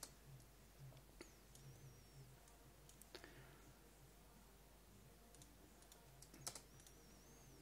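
Near silence with a few faint, sharp computer mouse clicks, spaced a few seconds apart.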